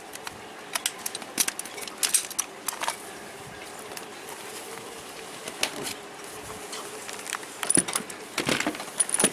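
Scattered small metallic clicks and clinks of snap-fastener hardware being handled and fitted to the boat's canvas, irregular and unevenly spaced.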